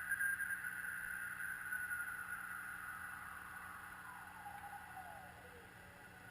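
Receiver audio from a Frog Sounds QRP CW transceiver on 40 metres: band hiss centred in a narrow mid-pitched band, growing fainter. About four seconds in, a faint whistle glides down in pitch, like a CW carrier's beat note sliding as the receiver is tuned.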